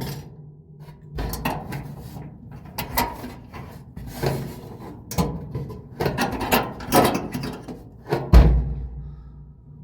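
Irregular knocks and clatters of parts and tools being handled inside a clothes dryer's cabinet during an idler pulley replacement, with one heavier thump about eight seconds in.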